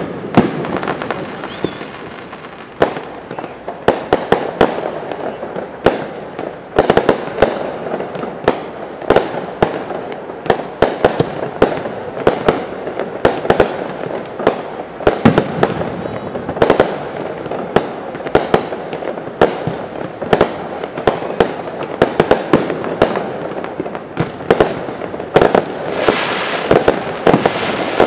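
Aerial firework shells bursting in rapid succession, dozens of sharp reports over a running crackle, growing into a denser crackling hiss near the end.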